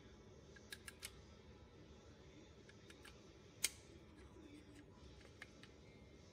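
Small metal clicks of brake pads and caliper parts being handled as the pads are refitted into the aircraft's brake caliper. There are a few light clicks about a second in, one sharper click around three and a half seconds in, and two faint ticks near the end, against near silence.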